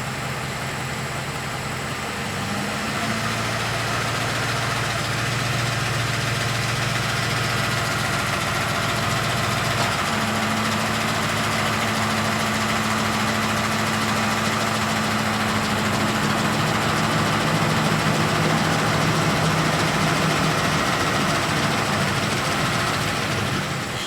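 Ford 5.4L Triton three-valve V8 held just above idle at about 800 RPM, running steadily with a rattling tick from the variable cam timing (VCT) phasers, which the owner takes for failing cam phasers. The engine speed rises a little about two to three seconds in.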